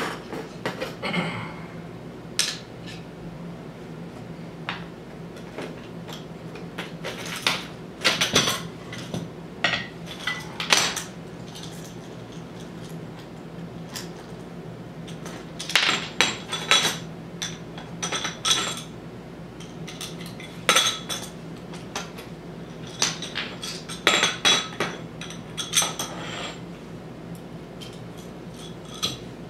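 Metal parts of a take-down bow saw, its square aluminium tube frame and steel blade, clinking and knocking as it is taken apart and packed away: scattered clusters of sharp clicks with short gaps between.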